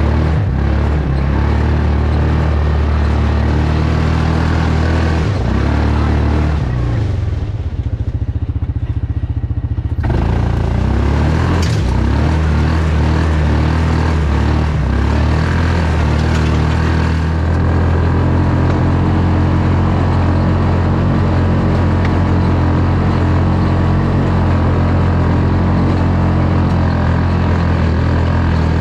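Yamaha Rhino side-by-side's single-cylinder engine running under load on a rocky trail climb. It eases off about seven seconds in and picks up again about three seconds later.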